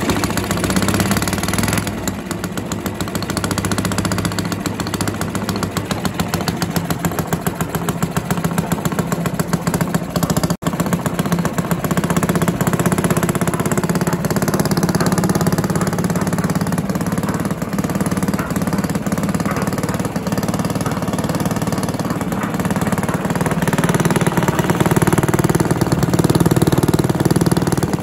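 Villiers 10 petrol engine on a Barford cement mixer running steadily, turning the mixer drum through its belt pulley. A brief break about ten seconds in.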